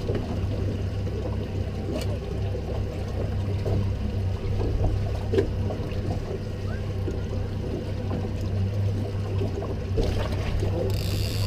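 Charter boat's engine running with a steady low hum, with small knocks and clicks around the deck and a brief hiss near the end.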